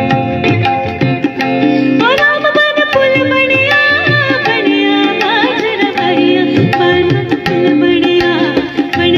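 Live Indian music: a woman singing a Dogri song over percussion and melodic accompaniment, her voice entering about two seconds in with a rising, ornamented phrase.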